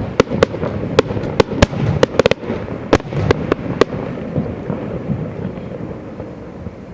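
Aerial fireworks bursting: a rapid, irregular series of about a dozen sharp cracks over the first four seconds over a low rumble, then the cracks stop and the rumble fades away.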